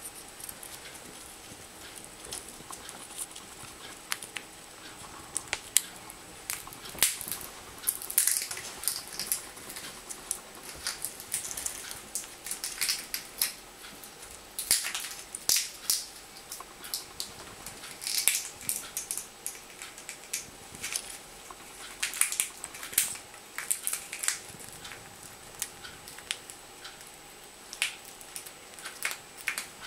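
Senegal parrot cracking and chewing a peanut shell with its beak: irregular sharp crunches and clicks that come in clusters.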